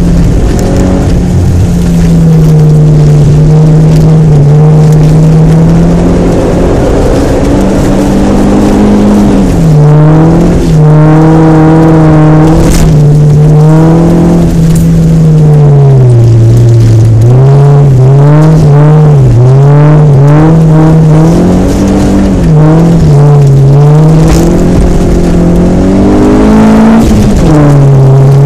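Honda Civic 4WD's four-cylinder engine running loud at high revs, its pitch rising and falling again and again as the throttle is lifted and reapplied, over a constant hiss of tyres on snow.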